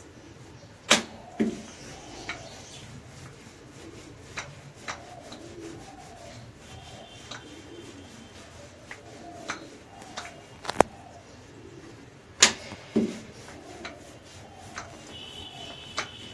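Rolling pin rolling out dough: a low rubbing with a few sharp knocks, the loudest about a second in and again about twelve seconds in.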